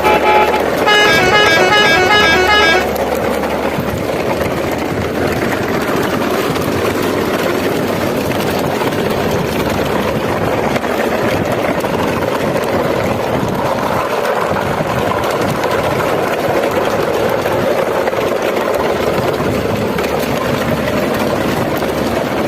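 A vehicle horn plays a quick tune of short beeping notes for about three seconds, then stops. After it a steady engine rumble runs on.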